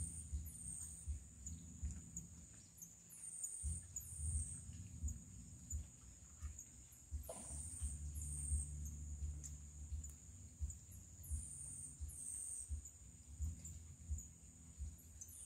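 Riverside forest wildlife: a steady high insect drone with short, high rising calls that come in pairs about every four seconds. An uneven low rumble runs underneath.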